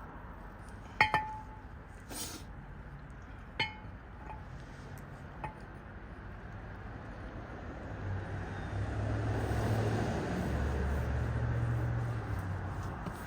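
Sharp metallic clinks of steel brake parts being handled during a brake rotor change: a loud strike with a brief ring about a second in, a lighter one near four seconds, and a few small ticks. In the second half, a low rumble swells up and fades away.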